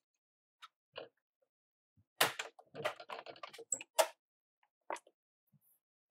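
Softened dried chile peppers being shaken and handled to knock their seeds out: a run of light clicks and rattles, with two sharper knocks.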